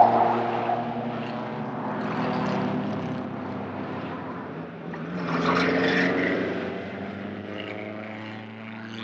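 Vintage car engines running, loudest at the start, easing off, then swelling again about five to six seconds in as a car draws near and passes.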